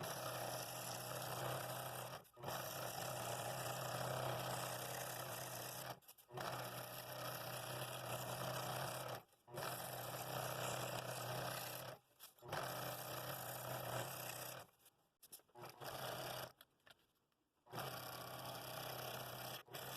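Scroll saw running and cutting thin wood: a steady motor hum with the blade's rasp. It breaks off abruptly several times, with a longer quiet gap about three-quarters of the way through.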